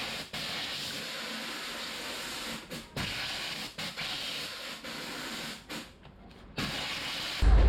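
Compressed air hissing in long blasts with short breaks between them, as from an air-blast leek peeler stripping the outer skins off white leeks. Near the end a louder low machine hum starts.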